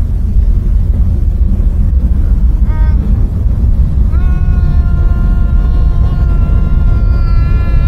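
Diesel locomotive air horn: a short toot about three seconds in, then a long steady blast starting about four seconds in and still sounding at the end, over a heavy low rumble.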